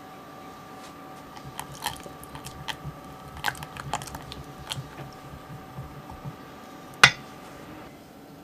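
A utensil tapping and scraping against a glass mixing bowl while gelatin is stirred into a thick, creamy batter: irregular light clicks, then one sharp knock near the end, over a faint steady hum.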